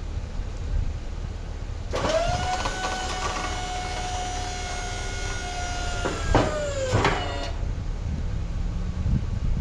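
Electric-hydraulic pump motor of a Fisher XLS expandable-wing snowplow whining as the plow wings extend. It starts about two seconds in and holds a steady pitch, then sags in pitch and cuts off with a couple of clunks about seven seconds in. The truck's engine idles underneath.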